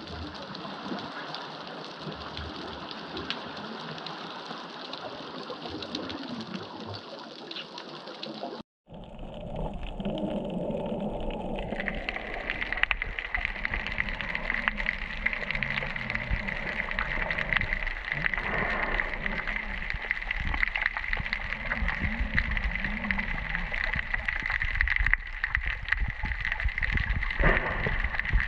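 Underwater ambience: a muffled, even hiss, then after a brief dropout about nine seconds in, a low rumble with a dense crackle of fine clicks, joined a few seconds later by a steady high whine.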